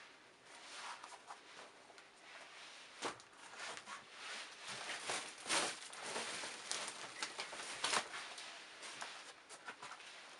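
Used shoes being handled and set down on a pile: irregular rustling and scuffing of fabric, laces and rubber soles, with a few soft knocks, the loudest about three, five and a half and eight seconds in.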